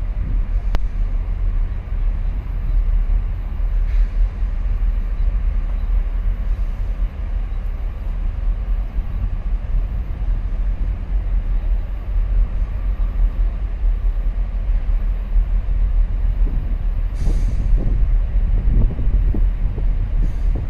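Low, steady rumble of the 24,000 TEU container ship HMM Southampton's engine as it passes close, with wind buffeting the microphone, gustier near the end.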